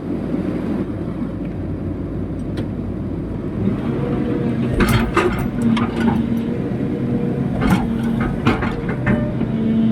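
Excavator engine running steadily under load, with several sharp knocks about halfway through and a few more near the end.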